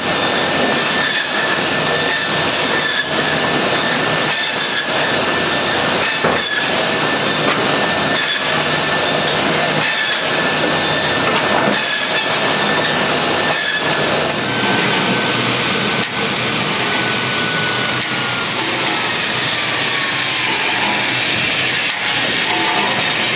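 Saw-sharpening grinder running loud and hissing as it grinds the teeth of a circular shingle saw blade, with faint strokes about once a second. Its thin steady whine slowly falls in pitch in the second half.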